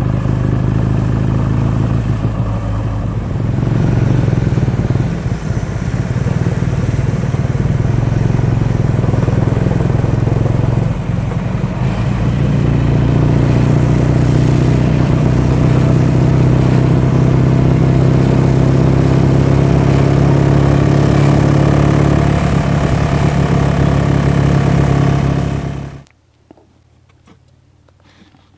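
BSA A65 parallel-twin motorcycle engine running under way, heard from on the bike, its note shifting a few times. The engine sound cuts off abruptly near the end, leaving only a faint background.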